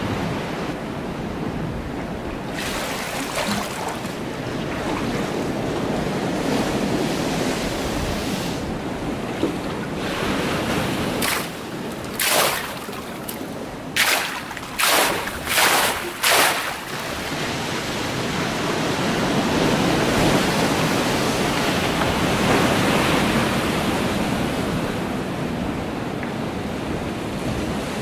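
Pool water sloshing and lapping as waves run across a swimming pool used as a wave tank. About midway, about six short, sharp splashes come in quick succession over roughly five seconds.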